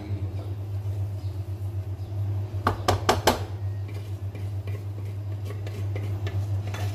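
Metal kitchen utensils and cookware clinking and knocking, a quick cluster of about four clinks roughly three seconds in and a few fainter ones later, over a steady low hum.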